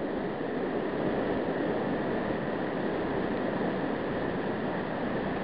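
Steady rush of turbulent whitewater pouring from a power plant's cooling-water outlet, an even noise that does not change.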